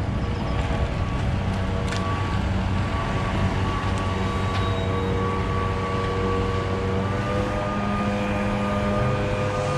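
Steady engine drone with a held tone that steps up slightly in pitch about seven seconds in.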